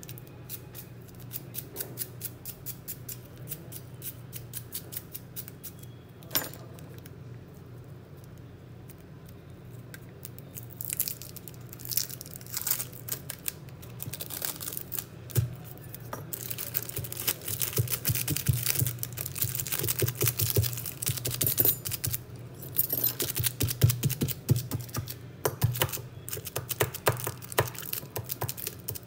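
Small irregular clicks and scratches of close hand work, sparse at first and much busier in the second half, over a steady low hum.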